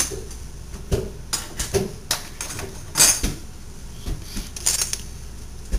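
Metal cutlery clinking and clattering as pieces are handled and set into a silverware drawer tray: a string of separate, irregular clinks.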